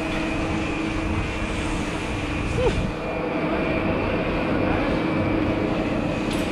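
Chairlift station machinery running: a steady mechanical hum with a few even tones held throughout, from the lift's drive and overhead bullwheel as the chairs come in.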